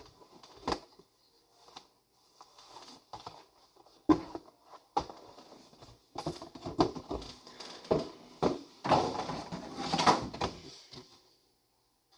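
Handling of the collection box and its contents: irregular rustling with scattered taps and clicks, cutting off suddenly near the end.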